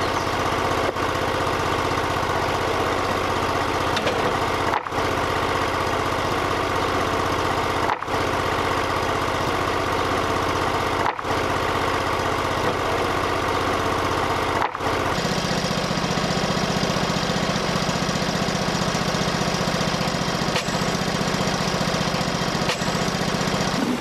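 Portable band sawmill's V-twin gasoline engine running steadily. The sound breaks off for an instant several times, and about 15 seconds in the engine note changes to a stronger, deeper hum.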